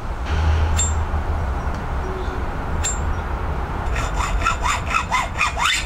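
Hand sawing on the metal steerer tube of a Marzocchi Bomber Z1 fork: a rapid run of back-and-forth strokes, about four or five a second, starting about four seconds in, with a couple of sharp clicks before it.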